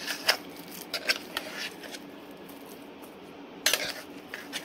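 Minced chicken being scraped out of a stainless steel mixer-grinder jar, with scattered clinks and scrapes against the steel: a cluster in the first second and a half, and another about three and a half seconds in.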